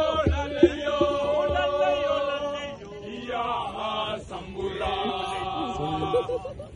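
A group of voices chanting together, with sharp low thumps in the first second or so. The chant breaks off briefly about three seconds in, then starts again and fades near the end.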